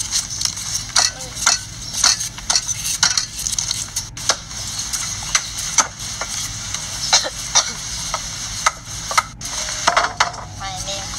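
Knives peeling raw sweet potatoes by hand: a run of short, quick scraping and cutting strokes, several peelers at once.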